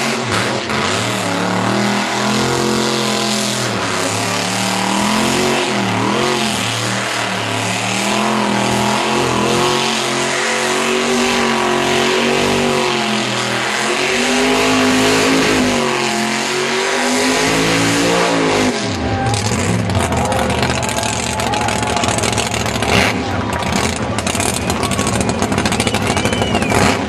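V8 burnout car held at high revs with its rear tyres spinning in a smoky burnout, the engine note wavering up and down as the throttle is worked. About nineteen seconds in the steady engine note breaks off abruptly and a rougher, noisier sound carries on.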